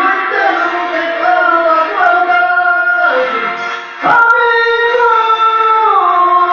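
A man singing a slow melody, holding long notes that slide from one pitch to the next, with a brief dip a little past halfway before he comes back in strongly.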